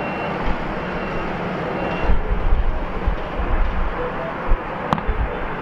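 Steady apron noise of aircraft engines and the pushback tug moving an Airbus A380, with low gusts of wind rumbling on the microphone from about two seconds in and a single sharp click near the end.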